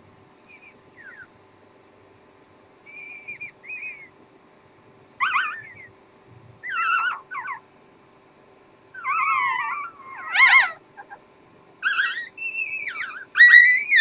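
Newborn puppies squealing: short, high, wavering cries, a few faint ones at first, then louder and more frequent from about five seconds in, loudest near the end.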